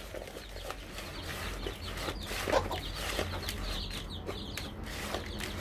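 Young chicks peeping in many short, quick chirps, with a hen clucking now and then. Underneath runs the rustle of a hand stirring dry grain feed in a plastic bowl.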